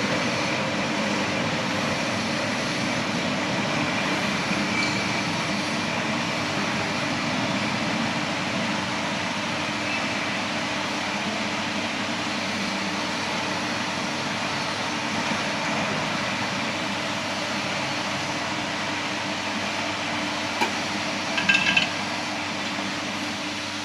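CNC aluminium profile arc bending machine running with a steady mechanical noise and low hum, with a few short metallic clinks near the end.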